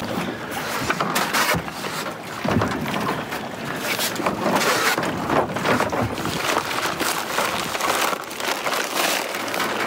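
A small boat under way, with wind buffeting the microphone and irregular knocks and splashes over a steady rush of noise.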